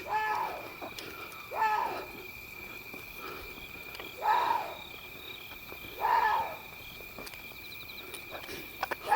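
Water deer calling in the dark: a series of short, hoarse, scream-like calls about half a second each, repeating every two seconds or so. A steady high insect drone runs underneath.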